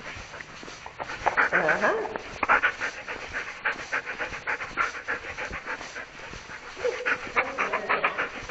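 A dog panting rapidly and rhythmically, close to the microphone.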